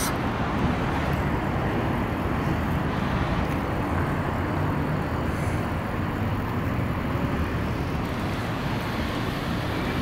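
Steady urban background hum: a constant low rumble with a hiss over it, unbroken and without distinct events.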